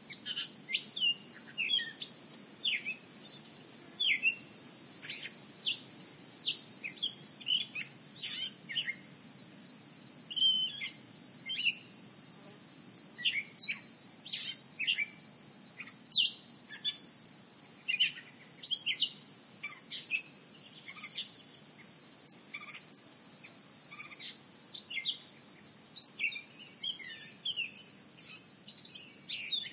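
Nature ambience: many short, quick bird chirps scattered throughout over a steady, high-pitched insect drone.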